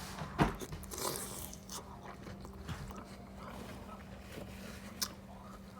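Close-miked chewing and mouth sounds of eating, with a sharp click shortly after the start and another about five seconds in. A faint steady hum sits underneath.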